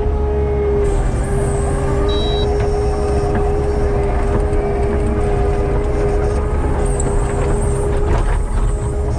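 Heavy diesel machinery running steadily under load, a constant deep engine drone with a steady whine held over it.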